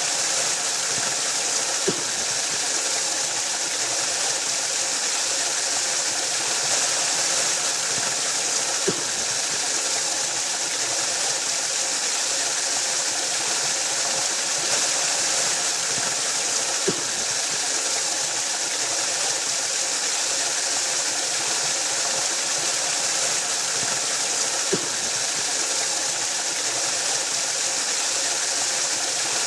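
Waterfall: water falling and splashing in a steady, unbroken rush, with a faint tick about every eight seconds.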